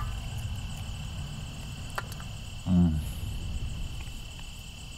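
Crickets trilling steadily in one continuous high-pitched tone. A little past halfway a person gives a short hum, with a faint click about a second before it.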